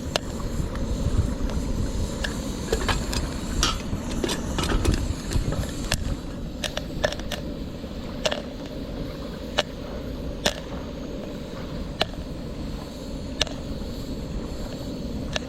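Popcorn kernels popping one at a time inside a metal teapot heated without oil. The sharp pops come quickly at first, then thin out to about one a second as the batch nears done.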